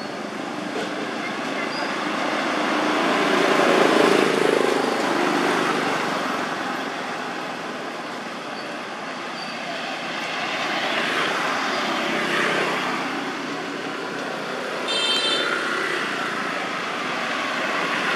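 Road traffic noise that swells as vehicles pass, once about four seconds in and again around eleven to twelve seconds. A brief high chirp comes in near the end.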